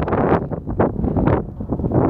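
Gusty wind buffeting the microphone in uneven rushes.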